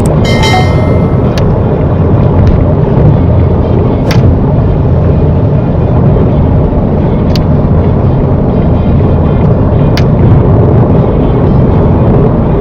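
Steady road and tyre noise inside a car at motorway speed on a rain-soaked road, with a few sharp clicks. About half a second in, a short chiming sound effect rings over it.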